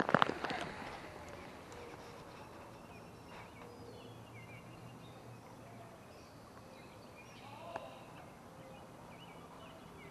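A short burst of rustling and knocking from hands and gear brushing the microphone at the start, then a quiet outdoor background with faint high chirps and a small tick about three-quarters of the way through.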